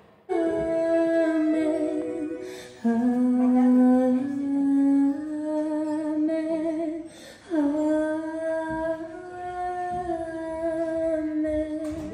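A vocal ensemble sings long held chords in close harmony, several voices with vibrato. There are three sustained chords, the second starting about three seconds in and the third about seven and a half seconds in.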